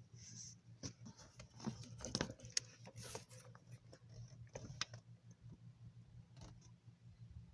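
Fiat Ducato steering column being turned back and forth by hand: faint scattered clicks and light rubbing over the first five seconds, then quieter, over a low steady hum. A thin nail now wedges the column's loose part, so the old knock from play in the column is no longer there.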